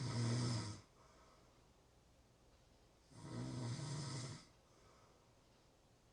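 A person snoring in a slow rhythm: two low-pitched snores about three seconds apart, each lasting about a second, with quiet breathing between them.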